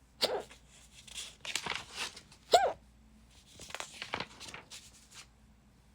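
A person hiccupping twice, about two seconds apart, each a short sharp catch in the throat, with scratchy colouring strokes on paper between the hiccups.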